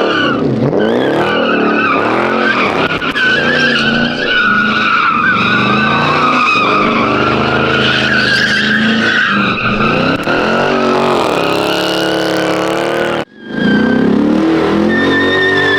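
Muscle car doing a burnout or donuts: the engine revs rise and fall over a continuous, wavering tyre squeal. The sound cuts out abruptly for a moment about thirteen seconds in, then the revving and squeal resume.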